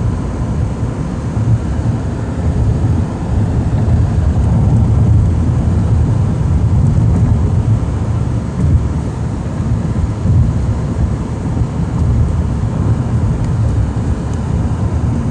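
Steady low rumble of road and wind noise from a moving car, heard from inside the cabin.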